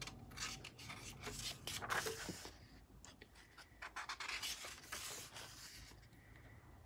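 Pages of a paperback colouring book being turned by hand: soft paper rustling and sliding in a few bursts, loudest about two seconds in and again around four to five seconds in.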